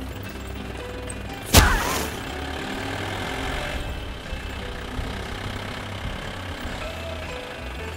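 Tractor engine sound idling steadily, a dubbed effect for a hand-pushed toy tractor. About a second and a half in there is one sudden loud crack with a short ringing tail.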